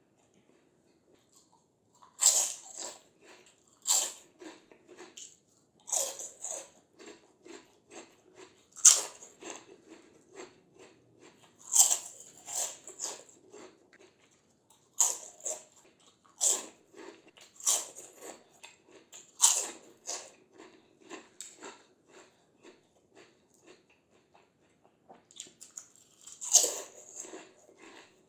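Close-up eating sounds of crispy fried snacks: a loud crunching bite every couple of seconds, each followed by a run of crackly chewing, with a lull near the end before one more big bite.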